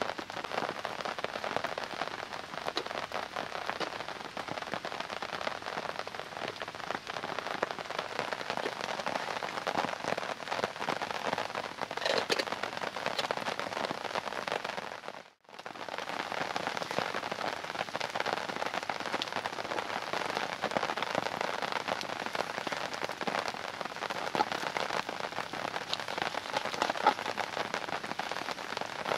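Heavy rain falling steadily, a dense even patter that cuts out for a moment about halfway through.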